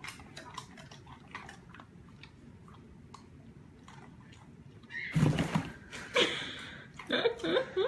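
Fingers scratching and tapping on a cardboard box: a run of faint, light scratches and clicks. About five seconds in comes a louder thump, and several short, pitched sounds follow near the end.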